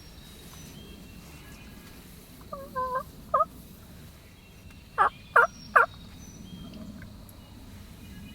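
Turkey calling: a short run of falling two-note calls about a third of the way in, then three loud, sharp notes about half a second apart just past the middle. Small birds chirp faintly in the background.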